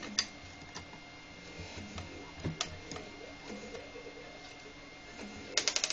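Small screwdriver working the screws of a soldering station's aluminium case. It makes scattered metal clicks and scrapes, with a quick run of clicks near the end.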